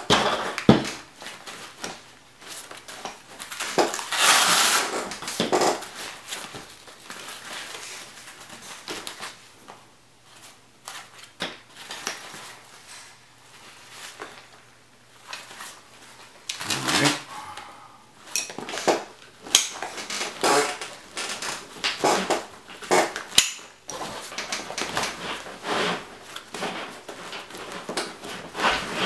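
Hands handling a nylon plate carrier and chest rig while fitting plastic Swift Clips: irregular rustling and scraping of the fabric and webbing, with sharp plastic clicks and a longer scratchy noise about four seconds in.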